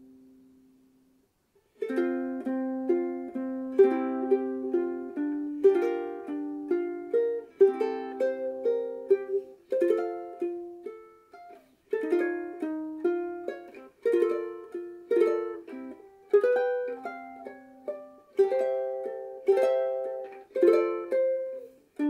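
Famous FS-1G soprano ukulele, with a laminated mahogany body and fluorocarbon strings, played solo. A chord rings out and fades at the start. After a short pause, a steady run of plucked chords and single notes begins, each ringing briefly before the next.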